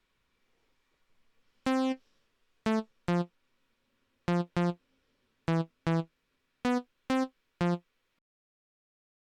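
Software synthesizer notes played back from a DAW: ten short tones with a bright, buzzy edge in an uneven rhythm of pairs and single notes, stopping about eight seconds in.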